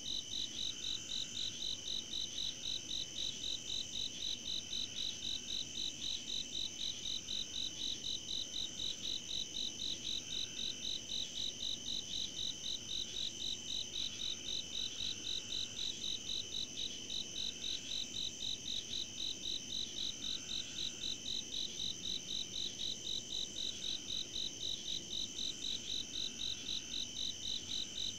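Night insect chorus: a loud call pulsing fast and evenly, over steady high-pitched trilling.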